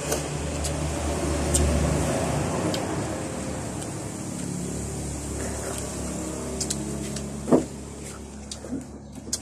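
Low engine hum of a passing vehicle, swelling to its loudest about two seconds in and then slowly fading. A short, sharp cry stands out near the end.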